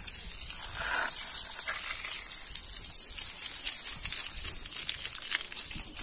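Water spraying from the broken tap of a plastic water storage tank, a steady hiss.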